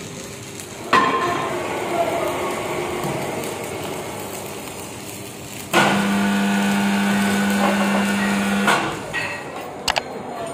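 A sledgehammer strikes a mild-steel disc once, leaving a ringing tone that fades over a few seconds. About six seconds in, an electric chain hoist starts and runs with a steady hum for about three seconds, then stops suddenly.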